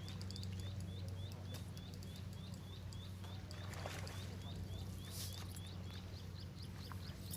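Outdoor pond-side ambience: a steady low hum under a fast, regular high chirping, about three chirps a second.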